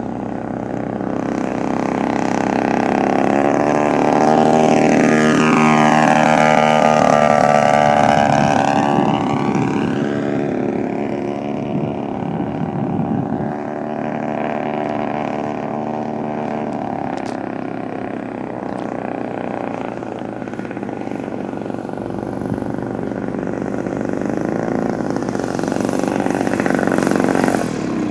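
DLE 55 single-cylinder two-stroke petrol engine of a large radio-controlled Tiger Moth biplane running at flying power. Its note sweeps up and then down in pitch as the model flies past a few seconds in, then holds steadier through the rest of the flight.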